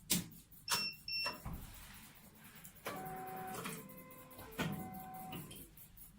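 Kinghawk SMART-I hematology analyzer being switched on: a click, two short high beeps, then two short spells of its internal motors running as the machine initialises.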